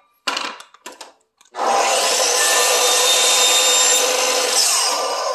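Makita LS1013 10-inch sliding compound miter saw making a test cut through a wooden strip after a bevel adjustment: a few light knocks as the wood is set against the fence, then the saw starts abruptly and cuts steadily for about three seconds, and the blade begins to wind down near the end.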